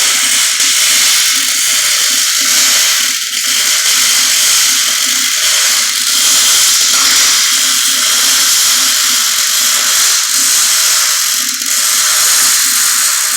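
Wire-feed welder arc burning continuously with a steady crackling hiss and a low hum underneath, the voltage turned up to about 19–20.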